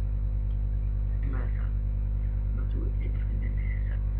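Steady electrical mains hum on the recording: a loud, unchanging low buzz with a ladder of overtones. Faint, low voice sounds come over it twice.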